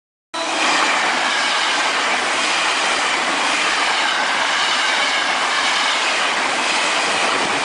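Electric commuter train passing close by, its wheels running on the rails in a steady rumble and rattle with faint high tones above it. The sound cuts in suddenly just after the start.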